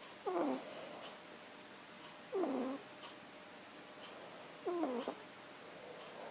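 A sleeping kitten snoring: three short, loud snores about two seconds apart, each a pitched note that slides down.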